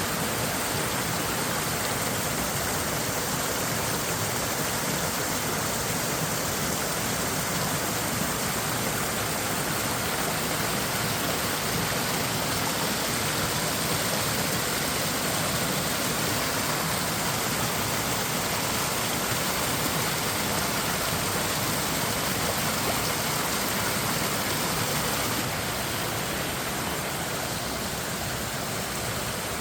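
Mountain stream rushing and splashing down over rocks in a steady roar of water, dropping a little in level near the end.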